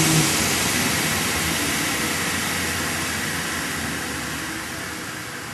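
CNC panel saw's main and scoring blades switched off: the steady motor hum cuts out a moment in, and the whir of the blades coasting down fades gradually.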